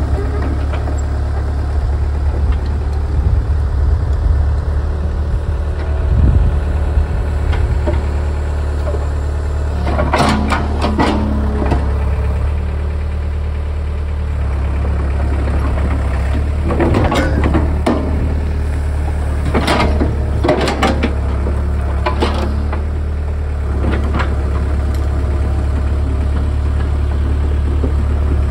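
Cat 307 mini excavator's diesel engine running steadily, with several short bursts of knocking and scraping from about a third of the way in as the bucket works the dirt and roots of a stump.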